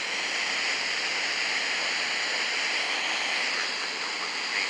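Steady hiss of radio static from an FM receiver.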